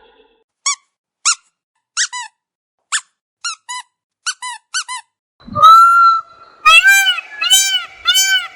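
Bird calls: a string of short, sharp chirps at uneven intervals, then about halfway through a longer, fuller call followed by repeated rise-and-fall calls at a bit more than one a second.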